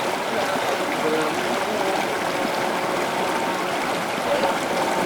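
River water flowing steadily over rocks, a continuous babbling and trickling rush.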